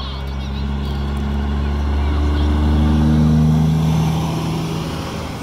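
Heavy truck's diesel engine running as it drives past close by pulling a lowboy trailer, growing louder to a peak about three seconds in and then fading.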